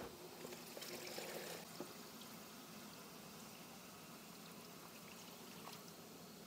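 Water pouring in faintly, a little stronger for the first second or two, then a steady faint trickle.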